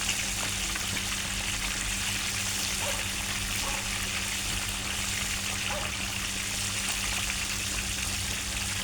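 Chicken pieces deep-frying in hot oil, a steady sizzle.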